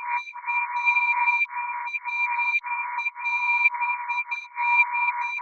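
Radar detector alert: a steady electronic two-tone buzz that drops out briefly about once a second, with quick higher beeps coming in small clusters of two or three.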